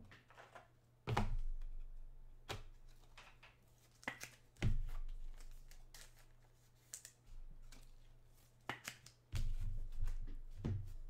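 Trading cards and their packaging being handled on a table: scattered clicks, slides and rustles, with dull bumps against the table about a second in, near the middle and near the end.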